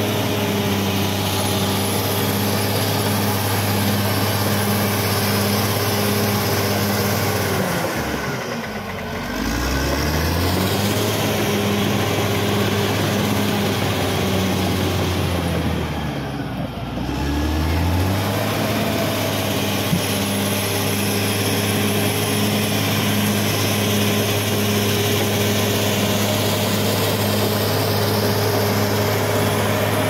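Caterpillar D6R bulldozer's diesel engine running steadily while the dozer pushes soil. Its revs drop and pick back up twice, about eight seconds in and again about sixteen seconds in.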